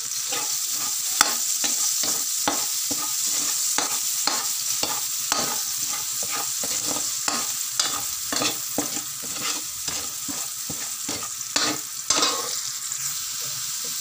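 Chopped onion sizzling in hot oil in a metal wok, with a metal spoon scraping and clinking against the pan about twice a second as it is stirred.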